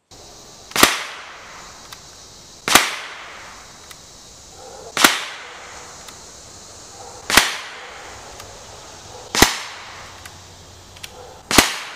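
Six shots from an Umarex TR50 .50 caliber CO2 revolver firing polymer balls, about two seconds apart, each a sharp report that dies away quickly.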